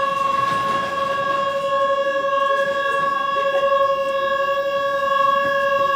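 Station platform departure buzzer sounding one loud, steady, unbroken tone, the signal that a train at the platform is about to leave.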